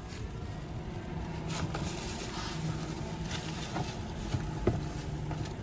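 A ventilation fan running with a steady low hum, over a rumble of wind against the van that grows a little louder toward the end, with a few light clicks.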